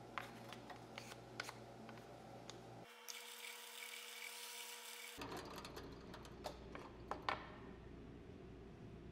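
Drill press running with a faint steady hum while a half-inch brad-point bit bores into plywood, with scattered sharp clicks and ticks from the cut. For about two seconds near the middle the hum gives way to a brighter hiss.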